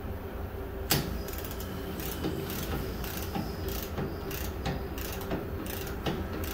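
Ratchet of a torque wrench clicking in a run of sharp clicks while a hydraulic swing clamp's retainer is tightened to 30 foot-pounds, with one louder click about a second in.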